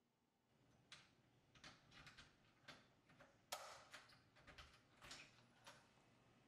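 Quiet metallic clicks and clacks of a door's locks and knob being worked as the door is unlocked and opened. About a dozen clicks come at uneven intervals from about a second in, with the loudest clack about three and a half seconds in.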